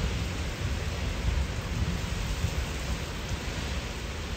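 Heavy rain pouring down in strong gusty wind: a steady hiss of rain over a low, gusting rumble.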